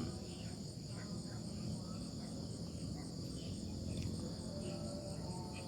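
Steady chorus of crickets and other insects at dusk, a continuous high shrill that does not let up.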